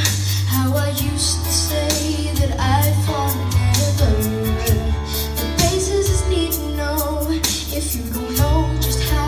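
An 11-year-old boy singing into a microphone in a high, unbroken voice over backing music with steady bass notes and a beat.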